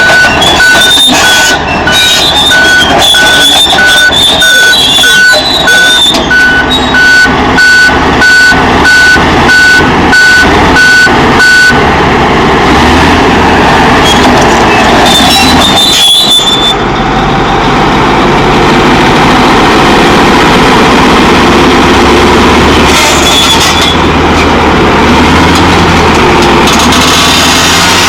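Caterpillar D9 bulldozer's diesel engine running loud with track clatter. Its reversing alarm beeps steadily for about the first twelve seconds, then stops while the machine works on.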